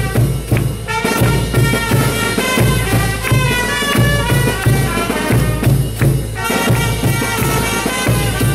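Festive band music for northern Chilean religious dancing: a fast, steady drum beat with a pitched melody over it, pausing briefly between phrases.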